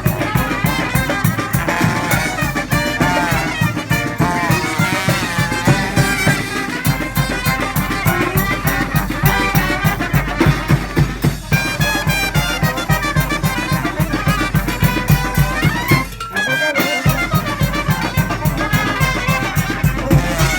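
Street brass band playing live, horns over a steady drum beat, with a short break about sixteen seconds in before the full band comes back in.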